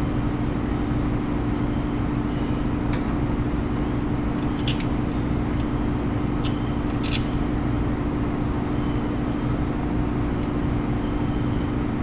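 Steady low hum of shop machinery throughout, with a few light metal clicks, about four, spaced between about three and seven seconds in, as a brake caliper bracket loaded with pads is fitted over the rotor.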